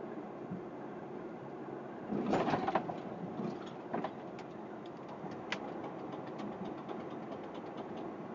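Steady engine and road noise heard from inside a truck cab while driving on the highway. About two seconds in there is a short, louder burst of noise, followed by a few sharp clicks and a run of faint ticks in the second half.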